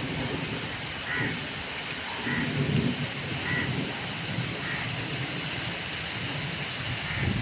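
Heavy rain falling steadily, with a low rumble that swells about two to three seconds in. A faint short high note repeats about once a second over the rain.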